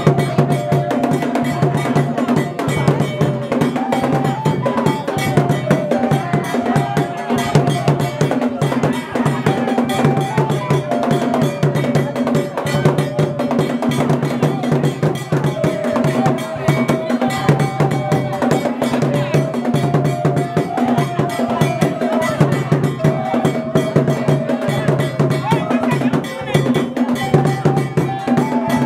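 Lively percussion music: drums with a metal bell striking a steady rhythm, and a stepping melody over it.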